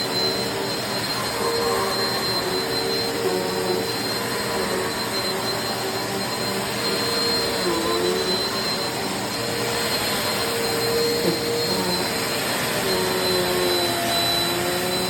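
Eureka PowerSpeed bagless upright vacuum cleaner running steadily. Its constant high whine sits over a lower motor tone that wavers slightly in pitch.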